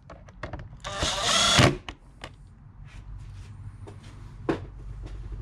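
Powered screwdriver running in one short burst about a second in, snugging a Phillips screw down into the plastic airbox, followed by a few light clicks and handling noise.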